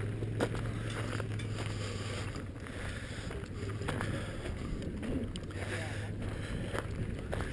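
Outdoor rumble on a walking action camera's microphone, with a steady low hum and scattered short sharp knocks.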